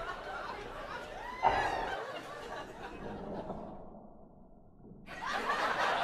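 Stifled laughter and giggling, with a short squeal about a second and a half in, in reaction to a very sour bite of fruit. It goes quiet briefly and picks up again near the end.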